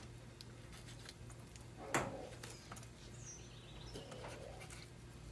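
Quiet knife-and-hand work on a gutted agouti carcass: soft handling noises with one sharp click about two seconds in. A short bird chirp follows a moment later, over a steady low hum.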